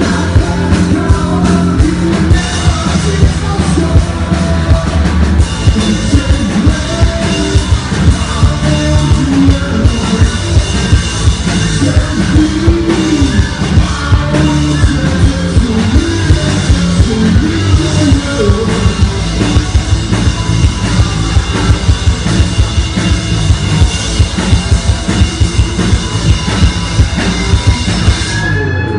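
Hard rock band playing live, a drum kit keeping a steady, driving beat.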